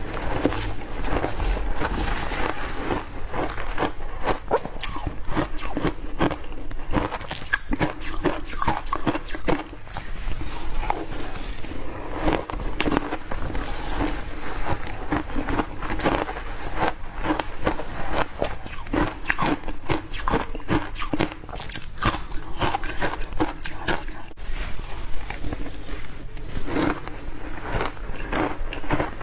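Ice being bitten and crunched: a continuous run of sharp cracks and crunches, many to the second.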